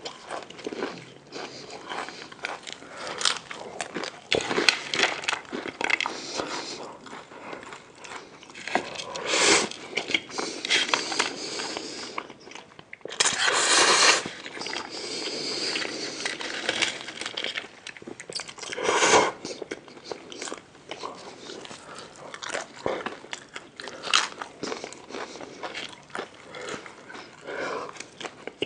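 Close-miked eating: a person biting and chewing crunchy food, with a dense run of crunches and crackles and a few louder bites.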